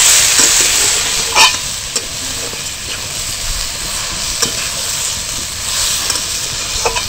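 Ridge gourd and moong dal sizzling in hot oil in a pan as they are stirred, with the utensil scraping and knocking against the pan a few times, most sharply about a second and a half in.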